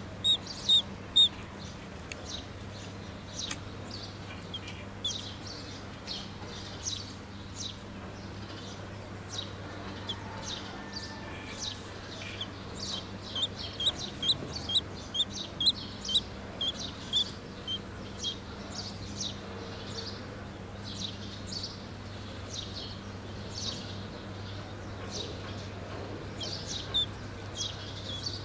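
Duckling peeping: short, high chirps repeated throughout, coming in quick runs of several a second around the middle, over a faint steady low hum.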